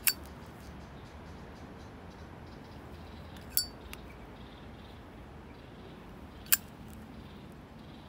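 Sterling silver Zippo lighter's hinged lid clinking three times: snapped shut at the start, flipped open with a ringing metallic ting about three and a half seconds in, then snapped shut again near the end.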